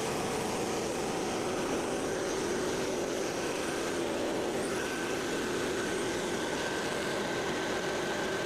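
Portable sawmill's small gasoline engine running steadily, with a faint thin whine joining about five seconds in.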